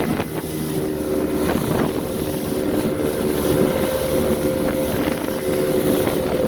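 Fishing boat's motor running steadily under way, a constant engine hum with wind buffeting the microphone.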